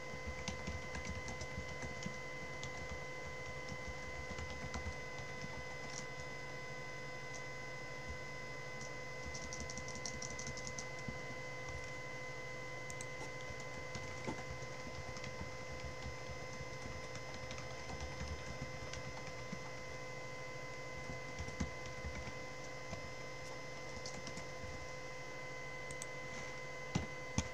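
Computer keyboard being typed on in irregular spurts of taps and clicks, with a steady faint electrical whine underneath.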